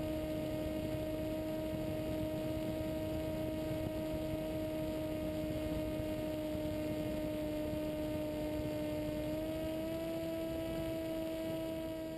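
Radio-controlled plane's motor and propeller running as a steady, even-pitched hum, heard from the plane's onboard camera with airflow noise; the pitch rises slightly about three-quarters of the way through as the throttle comes up.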